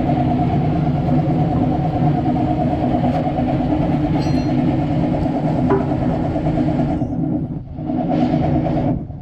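Steady mechanical drone with a fast flutter that dips briefly near the end.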